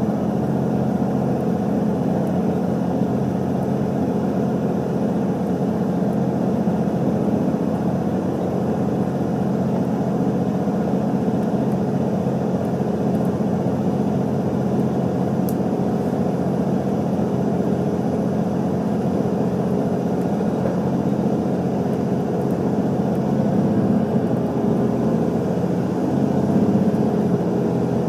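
Cabin running noise of a JR Central HC85-series hybrid diesel express train under way: a steady hum and rumble from the engine and the wheels on the rails, swelling a little near the end.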